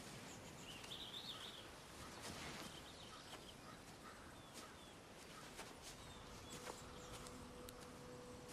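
Quiet outdoor ambience with a few faint bird chirps. A soft, held low tone of background music comes in near the end.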